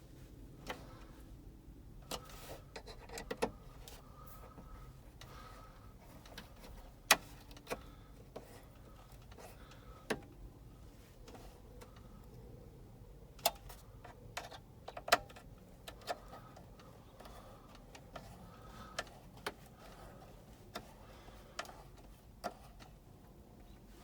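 Irregular light clicks and taps of hand tools, screws and plastic trim parts being handled while a glove box latch is fitted into a truck dash, with a few sharper knocks.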